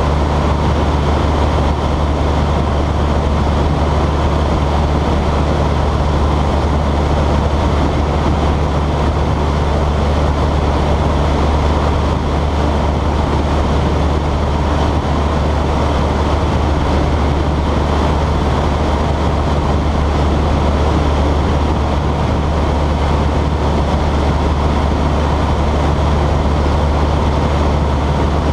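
Piper Cub's engine and propeller running steadily in cruise flight, a constant low drone with heavy wind rush over the airframe.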